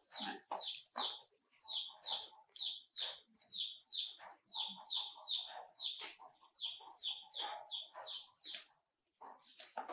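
A bird chirping over and over, about two short high falling notes a second, pausing briefly near the end. Softer rustling and crunching of lotus seed pods being torn open and eaten sits underneath.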